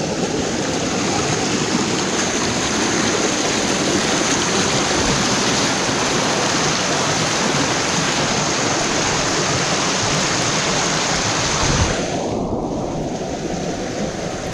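Rushing water of a creek and cascades, a loud steady hiss. About twelve seconds in, the high part of the hiss cuts away suddenly, leaving a duller, lower rush.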